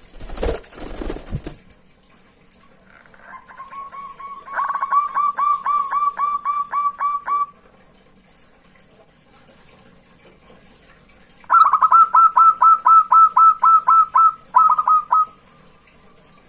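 Zebra dove (perkutut) singing: two bouts of quick, evenly repeated cooing notes, about four or five a second. The second bout is louder. A brief rustling noise comes just at the start.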